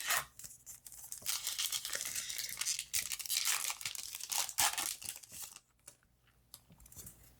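Yu-Gi-Oh booster pack wrapper being torn open and crinkled by hand, a dense crackling that stops about five and a half seconds in, followed by a few faint ticks.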